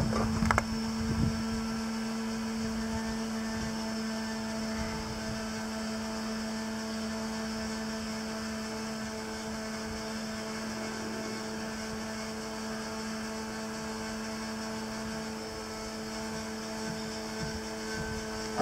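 Steady machine hum with a clear, unchanging pitch, with a couple of short knocks near the start.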